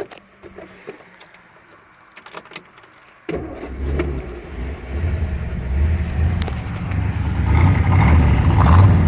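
A few small clicks, then about three seconds in the 1956 Ford Thunderbird's 312 V8 fires up and keeps running with a low, pulsing rumble that gets louder toward the end.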